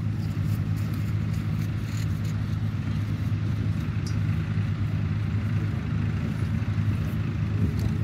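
Tractor diesel engine running steadily under load while pulling a plough, a constant low hum.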